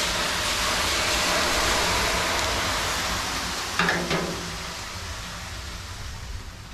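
A loud rushing hiss that starts suddenly and slowly dies away over several seconds, with a brief knock about four seconds in.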